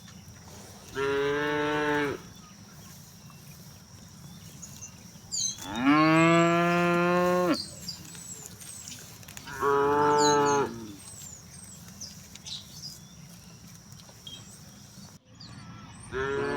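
Cattle mooing: three separate low calls, the middle one the longest and loudest at about a second and a half, and a fourth call starting near the end.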